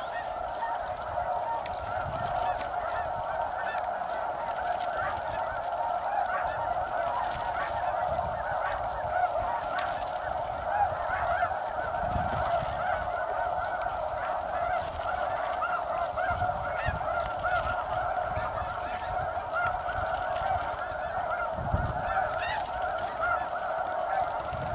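A steady chorus of many overlapping snow goose calls, high-pitched honks that never break off.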